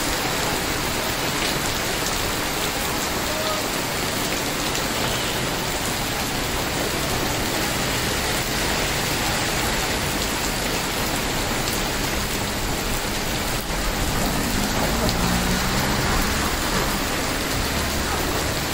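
Heavy rain falling steadily, a continuous hiss of drops on wet pavement. About three-quarters of the way through, a low rumble swells for a few seconds.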